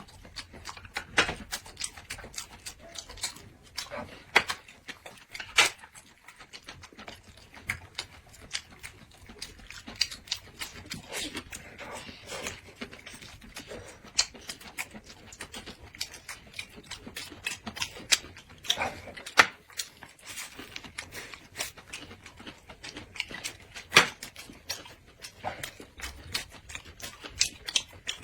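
Close-miked eating sounds: chewing and mouth smacking with many irregular sharp clicks and crunches.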